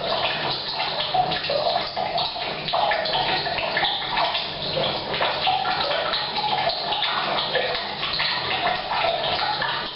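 Heavy rain pattering on a roof, mixed with mains water pouring steadily from a pipe into a water tank, echoing in a small tiled bathroom.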